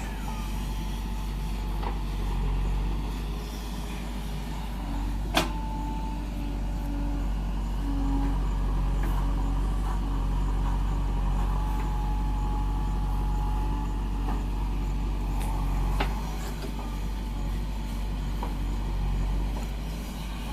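JCB backhoe loader's diesel engine running steadily while it digs and loads soil, with a sharp clank about five seconds in and a softer knock near the sixteen-second mark.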